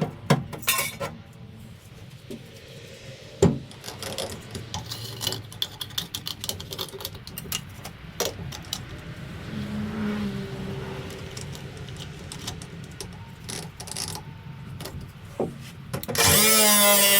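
Scattered knocks, clicks and scraping from tools and parts being handled, then near the end a power tool starts up with a loud, wavering whine.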